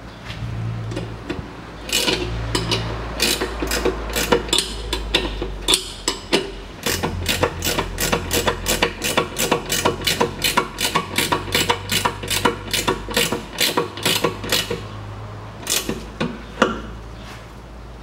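Hand ratchet clicking in quick, even strokes, about three clicks a second, as a nut on a rear stabilizer link is turned. It pauses briefly near the end, then gives a few last clicks. A low steady hum runs underneath.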